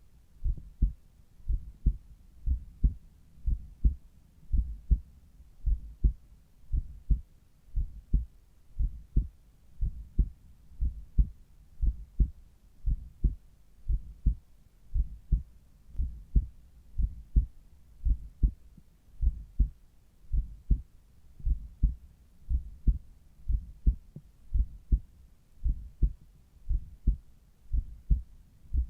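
Human heart sounds heard at the apex through a Littmann Cardiology IV stethoscope. A steady, regular lub-dub of paired low thumps comes about once a second.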